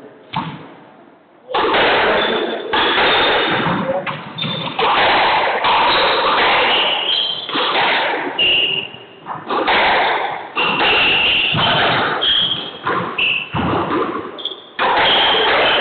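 Squash balls thudding and smacking off the court walls, with short high squeaks of shoes on the wooden court floor, echoing in the enclosed court.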